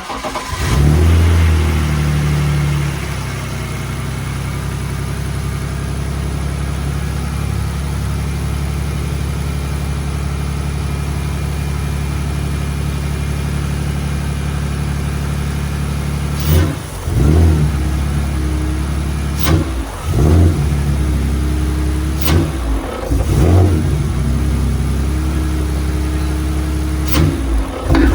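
BMW E46's inline-six engine starting and catching, running at a raised idle for about three seconds, then settling to a steady idle. From about halfway on, the throttle is blipped several times in short stabs, a check on an engine that has been bogging and stalling when the gas is hit.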